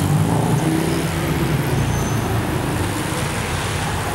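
Road traffic noise: a steady low rumble of motor vehicles, with an engine hum that fades about a second in.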